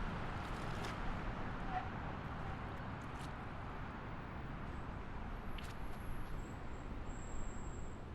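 Steady highway road noise of a car driving at speed: an even rumble of tyres and engine with no change in pitch.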